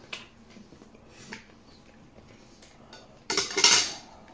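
Cutlery and dishes at a dining table: a few light clicks of utensils against plates, then a louder scraping clatter lasting under a second near the end.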